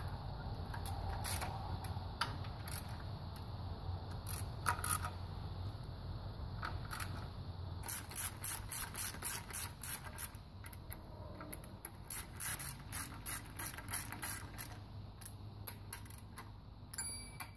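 Hand ratchet wrench clicking as small bolts are run into an engine's timing chain cover. Scattered clicks at first, then a fast steady run of ratchet clicks from about halfway in.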